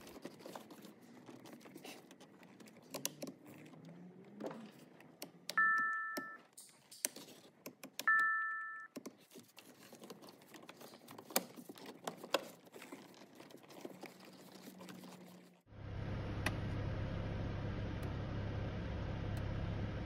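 Plastic clicks and knocks as a BMW E90-series headlight switch and air-vent trim are pressed back into the dashboard. The car's electronic two-tone chime dings twice, about six and eight seconds in. About three-quarters of the way through, the sound changes to a steady low hum of the car running.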